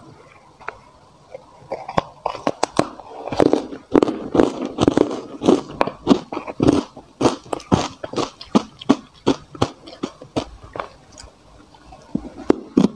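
Close-up crunching of ice being bitten and chewed: crisp, sharp crunches about two to three a second, starting about two seconds in after a quiet start.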